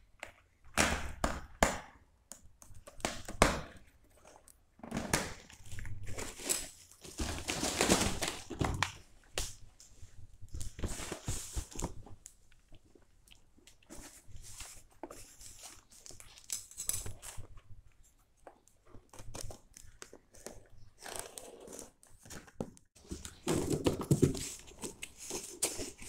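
A cardboard parcel being opened by hand: scissors snipping the string and tape binding, packing tape tearing, cardboard rustling and crinkling, and the box knocking on a hard tiled floor as it is lifted and turned.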